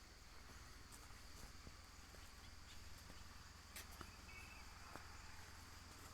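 Near silence: a faint steady hiss with a few soft scattered clicks.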